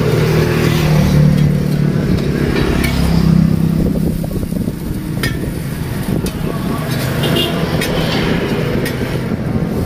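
Road traffic: a motor vehicle engine runs close by, loudest about three seconds in. A few sharp clinks come from steel spatulas against the iron griddle.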